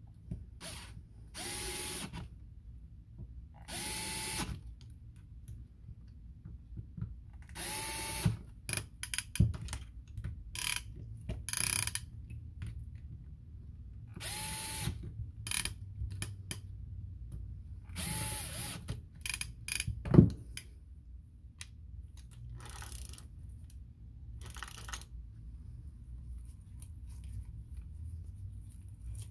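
Cordless electric screwdriver running in several short bursts of about a second each, driving screws into a Penn 113 reel, each burst a steady motor whine. Light clicks and knocks of parts and tools being handled come between the bursts, with one sharp knock about two-thirds of the way through.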